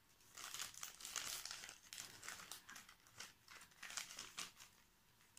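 Small clear plastic bags of diamond-painting rhinestones crinkling and rustling in the hands, in faint irregular bursts.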